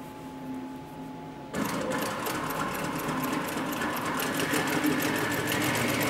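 Two-needle walking-foot industrial sewing machine starting to stitch about a second and a half in, then running at a steady speed with fast, even needle strokes.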